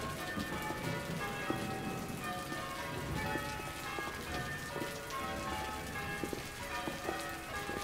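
Steady rain falling, with many short ringing notes at scattered pitches sounding over it.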